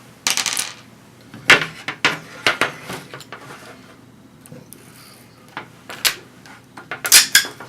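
Masking tape and a plastic drill template being pulled off a plastic computer case: a series of short rasping peels and clicks with pauses between, the longest about half a second near the start and a quick cluster near the end.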